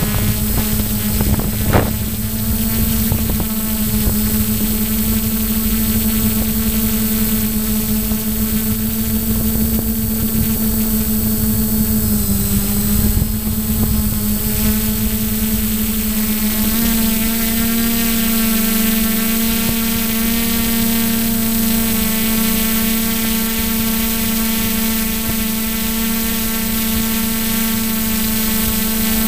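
Motor and propeller of a radio-controlled model plane in flight, heard through its onboard camera, running with a steady droning hum. The pitch dips briefly about 12 seconds in and steps up a little around 17 seconds in, then holds. There is one sharp click near the start.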